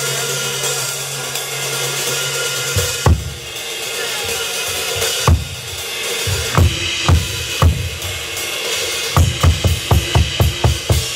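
Drum kit solo: a low steady rumble under ringing cymbals for the first few seconds, then single heavy drum strikes spaced a second or two apart, and a quick run of about four hits a second near the end.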